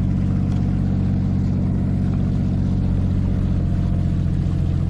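Boat engine running steadily under way, a low, even drone with a fast regular beat.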